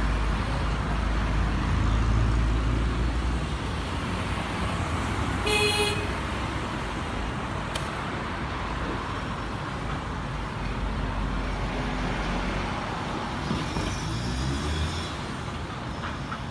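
Steady roar of road traffic with a short car horn toot about five and a half seconds in, and a vehicle engine revving up near the end.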